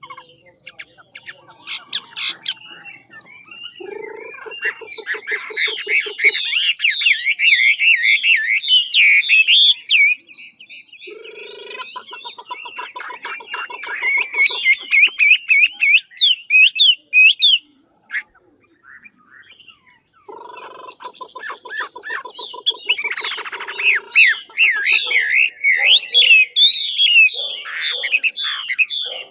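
Chinese hwamei (Garrulax canorus) singing loudly in three long bursts of fast warbling and trilled notes. Each burst opens with a lower, rapid rattle, and the bursts are broken by short pauses about ten seconds and eighteen seconds in.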